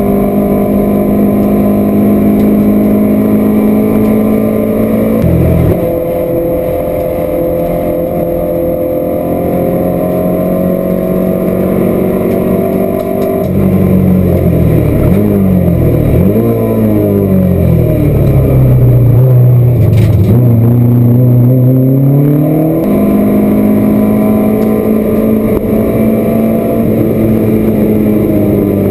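Citroën saloon race car's engine under racing load, heard from inside the cockpit over steady road and wind noise. The revs are held high, step down sharply about five seconds in, then from about fourteen seconds fall and rise several times, stay low for a few seconds and climb again as the car accelerates.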